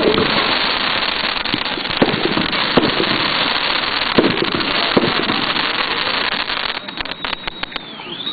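Pyrotechnics going off: a dense, continuous crackle of firecrackers with a few louder bangs standing out, thinning to scattered separate cracks near the end.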